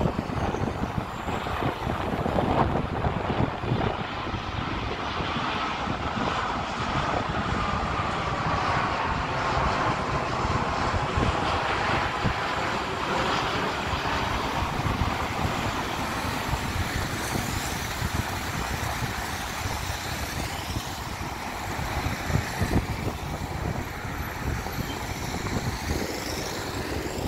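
Boeing 787-9 Dreamliner jetliner with General Electric GEnx engines passing low overhead on approach, gear down: a steady jet roar, with an engine whine that glides down in pitch as the aircraft goes by.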